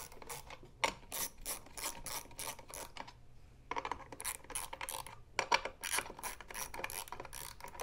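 Hand socket ratchet clicking in quick runs of strokes as bracket bolts are run in, with a short pause about three seconds in.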